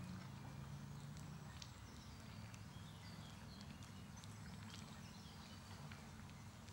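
Faint outdoor ambience: a steady low rumble with scattered faint ticks and a few short, high chirps.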